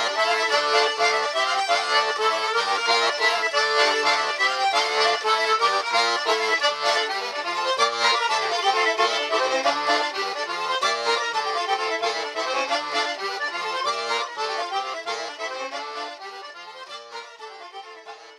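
Accordion music: a lively tune over steady bass notes, fading out over the last few seconds.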